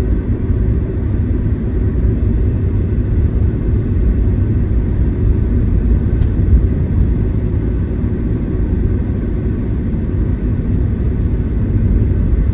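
Steady low rumble of tyre and road noise heard inside a moving Tesla electric car's cabin, with no engine note; a faint short click about six seconds in.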